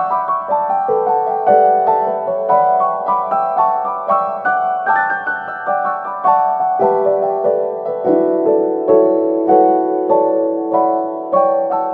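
Background piano music: a calm melody of single notes struck about twice a second, each ringing on and fading.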